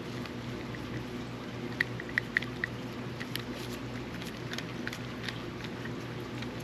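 Small sharp metal clicks from a Penn Battle II 3000 spinning reel's bail mechanism being worked by hand: four quick clicks about two seconds in, then scattered lighter ticks, over a steady low hum.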